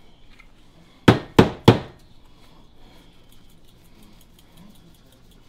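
Three quick, sharp knocks a little over a second in, a seasoning shaker bottle being tapped against a hard surface while onion salt is shaken onto steaks.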